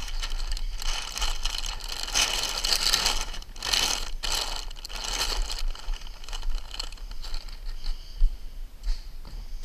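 Scraping and rustling as someone moves and handles things on a roof covered in ice and water shield membrane. It comes in uneven bursts, busiest in the first half.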